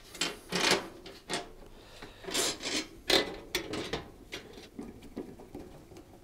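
Dishwasher's sheet-steel base panel being fitted back onto the machine, scraping and knocking against the metal cabinet in a string of short rubs and bumps that die down near the end.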